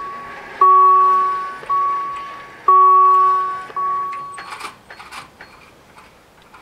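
Level crossing warning bell ringing in loud, ringing strikes, a strong one followed about a second later by a weaker one, the pair repeating every two seconds as the barriers come down. It stops about four seconds in, once the barriers are down, and a few short knocks follow.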